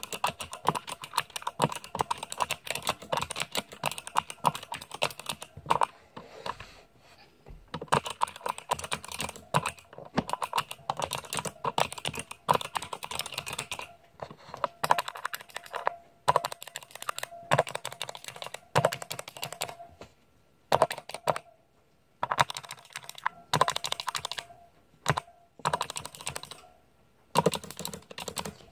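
Typing on a Hansung MKL16S mechanical keyboard with Kailh Speed Pink clicky switches and ABS keycaps: fast bursts of sharp key clicks, broken by a few short pauses in the second half.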